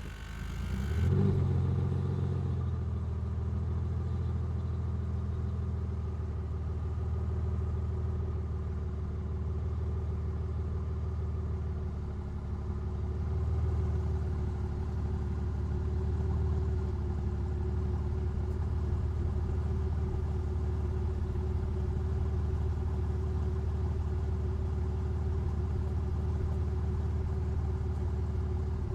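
Aston Martin car engine idling steadily, after a short rise in revs about a second in.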